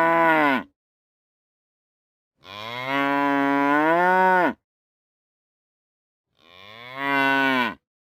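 Cows mooing: the end of one moo, then a long moo of about two seconds, then a shorter one near the end. Each call drops in pitch as it finishes, and there is silence between them.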